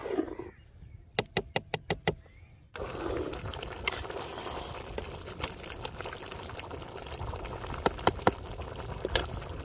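Vegetable stock with basmati rice boiling in a large aluminium pot, a steady bubbling hiss, while a metal ladle stirs and clinks against the pot. About a second in there is a quick run of six sharp ladle taps, and there are three more knocks close together near the end.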